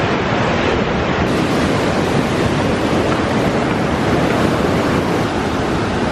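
Steady, loud rush of falling water from a waterfall on the Mekong.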